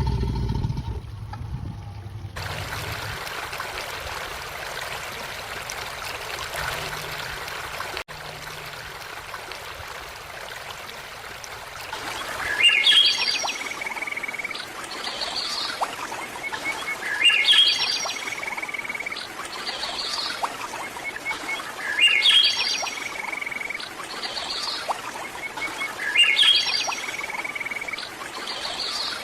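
Running water, a steady trickling stream, for about the first twelve seconds; then a songbird's phrase of quick rising chirps followed by a run of short notes, repeated at even intervals about every four and a half seconds, like a looped nature sound effect.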